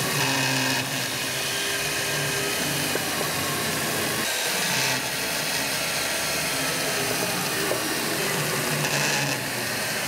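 Skilsaw carpentry chainsaw, a corded saw with a chain bar, running steadily as it cuts down through a stack of wooden I-joists. It runs smoothly, without chatter.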